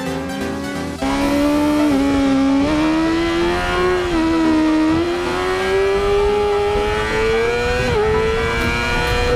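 Yamaha YZF-R6's 600 cc inline-four engine at high revs on a race track, its pitch climbing steadily with brief dips as the throttle is eased or a gear is changed. Background music plays under it for about the first second.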